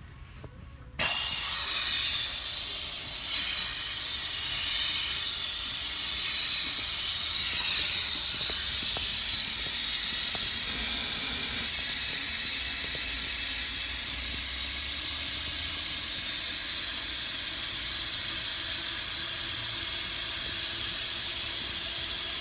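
Helium hissing steadily from a balloon inflator nozzle into a balloon, starting suddenly about a second in.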